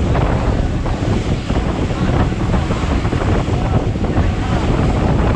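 Wind buffeting the microphone over the rush of waves and water around a boat under way at sea. It is a loud, steady, rumbling noise with no distinct engine note.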